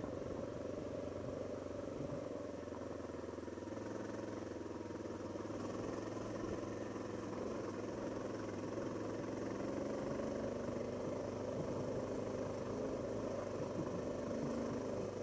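Honda XR650L dual-sport motorcycle's air-cooled single-cylinder four-stroke engine running steadily as the bike is ridden over a rocky trail.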